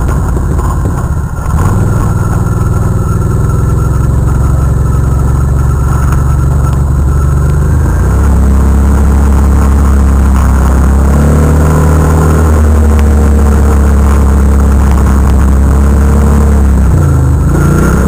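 Can-Am Renegade ATV engine running hard at a steady pitch while under way across sand. About halfway through the pitch settles at a new level, and near the end it briefly drops and rises again as the throttle is eased and reapplied.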